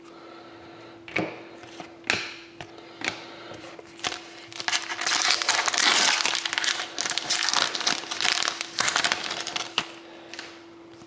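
A trading card pack's foil wrapper being torn open and crinkled, in a dense crackling burst from about four seconds in until near the end. Before it come a few sharp taps as cards are handled.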